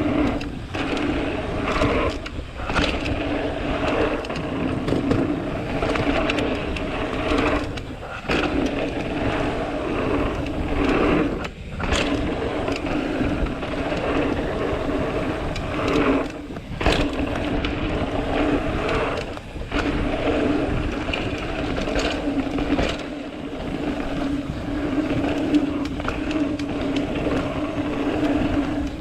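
Helmet-camera sound of a downhill mountain bike run: tyres rumbling and scraping over the dirt trail, with frequent knocks and rattles from bumps. A steady buzz runs underneath and drops out briefly several times.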